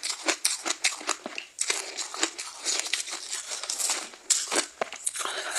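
Close-miked biting and crunching of soft frozen ice: a rapid, irregular run of crisp crunches and crackles.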